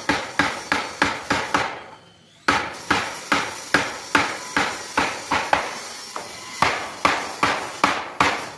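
Hand hammer striking a metal punch held on an aluminium sheet, chasing a raised decorative pattern into the metal. Quick, regular sharp taps at about three a second, with a short pause about two seconds in and a brief lull near the six-second mark.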